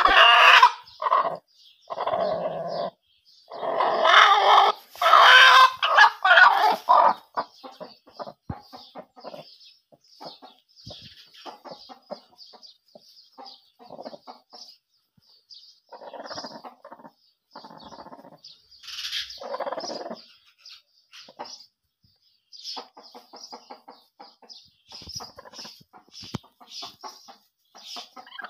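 Broody Aseel hen clucking in short irregular bursts as she is settled onto her eggs, loudest in the first few seconds and again about two-thirds of the way through, with soft rustling of the straw nest between calls.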